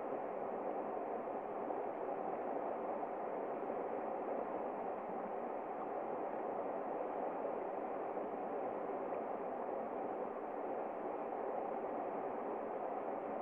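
A river flowing, a steady, unbroken rush of water running past rocks.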